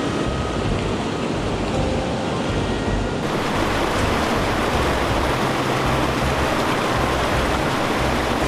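Rushing mountain river water: a steady, even roar of rapids. It turns brighter and fuller about three seconds in.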